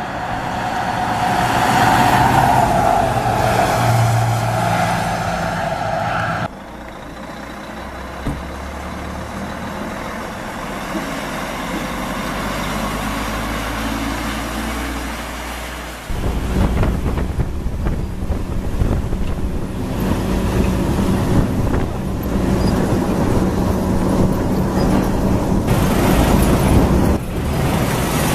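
Diesel engines of heavy Volvo FH logging trucks across three cuts. For the first six seconds a truck drives up with its engine and a whine growing louder. Then a quieter engine runs steadily at low speed. From about sixteen seconds in a louder, rougher engine runs steadily.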